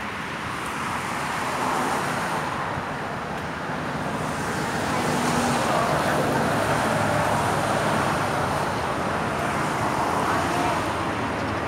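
Steady road traffic noise, an even rushing sound that grows slightly louder about two seconds in.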